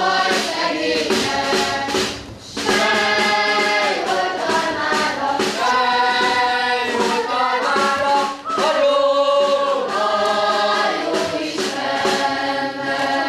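Children's choir singing with a snare drum beating along, with short breaks between phrases.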